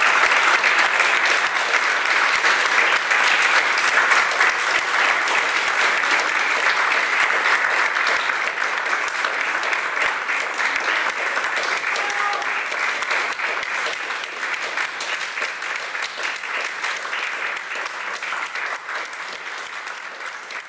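Audience applauding, the clapping slowly fading toward the end.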